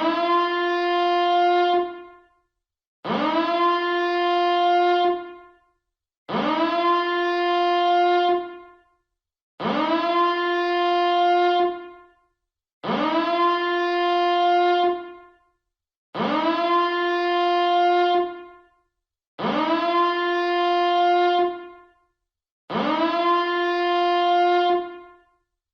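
Nuclear power plant reactor alarm siren sounding in repeated blasts. Each blast sweeps quickly up in pitch to a steady horn-like tone, holds about two seconds and stops, and the next starts about every three seconds.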